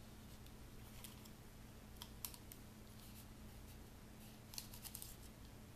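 Near silence: a faint steady room hum with a few light clicks from paper and small parts being handled, about a second in, twice around two seconds in, and a little cluster near the end.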